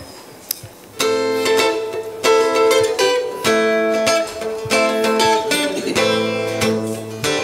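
An acoustic guitar comes in about a second in, playing chords that change every second or so: the opening of a folk-rock song played live.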